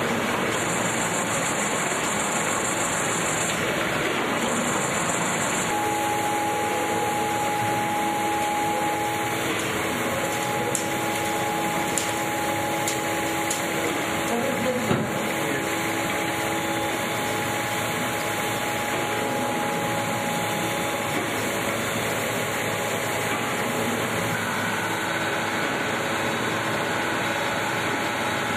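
Olive oil mill machinery running steadily: a continuous mechanical noise with a steady hum that comes in about six seconds in, and a few faint metallic knocks near the middle.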